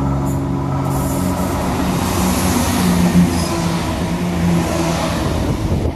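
ScotRail Class 170 Turbostar diesel multiple unit running past, its diesel engine note rising and falling over a steady rumble of wheels on the rails.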